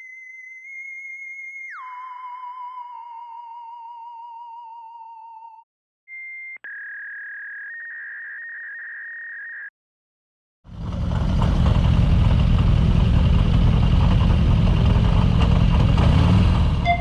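Electronic intro tones: a high wavering tone that drops sharply in pitch, then a short synthesized chime. About eleven seconds in, a Harley-Davidson Twin Cam 88 V-twin motorcycle engine is heard running loudly.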